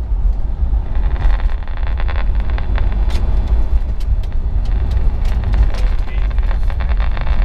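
Low road and engine rumble inside the cabin of a moving 1956 Dodge Sierra wagon. From about a second in, the car's AM radio adds hiss and crackling static while it is tuned between stations.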